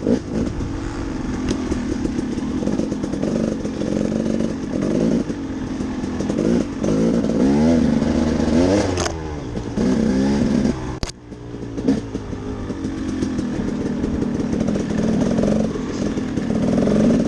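Dirt bike engine under way, its pitch rising and falling as the throttle is opened and closed. About eleven seconds in it drops off sharply with a click, then builds again.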